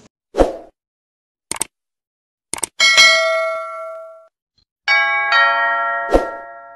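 Outro sound effects for an animated subscribe button: a short burst of noise, a double click, another click, then a bright bell ding that rings out and fades. A second two-stroke chime follows, with another short burst near the end.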